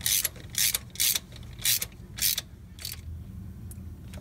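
Ratchet wrench on the centre screw of a T-bar puller, its pawl clicking in short bursts about twice a second as the harmonic balancer is drawn off the crankshaft. The clicking stops about three seconds in.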